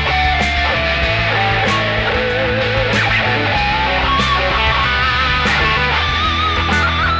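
Stratocaster-style electric guitar playing a sustained lead line, with bent notes and vibrato, over a backing track with a steady beat and held bass notes.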